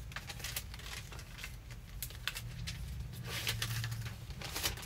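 Scattered light rustles and clicks of packing by hand: mailers, paper and shipping labels being handled on a counter.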